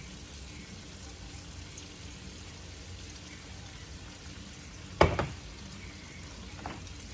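Ground beef and peppers sizzling steadily in a hot pan as they stir-fry with the sauces just added, with one sharp clank about five seconds in and a lighter knock shortly before the end.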